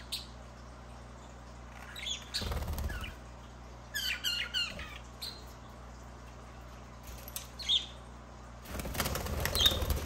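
Budgerigars fluttering their wings in two bursts, a little after two seconds and again near the end, the second the louder, with a quick run of chirps about four seconds in and a few single chirps between.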